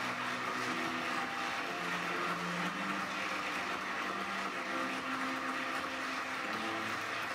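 Slow music with long held low notes that shift every second or two, over a steady hiss.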